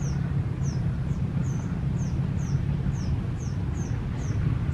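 A small animal's high, short, falling chirp repeated steadily about three times a second, over a steady low rumble.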